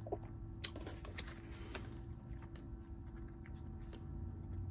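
Quiet eating: chewing, with scattered light clicks of a plastic fork against a plastic takeout bowl, over a steady low hum.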